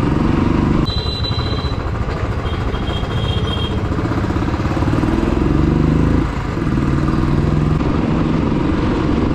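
Royal Enfield Classic's single-cylinder engine running under way, rising in pitch as it pulls, with a short dip about six seconds in before it pulls again, over wind and road noise. Two short high-pitched tones sound about one and two and a half seconds in.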